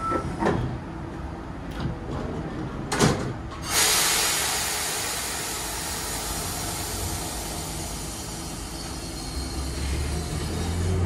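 Randen tram at a station platform: a knock of the doors closing about three seconds in, then a sudden rush of compressed air that slowly fades. Near the end the traction motors start with a low rising whine as the tram begins to move off.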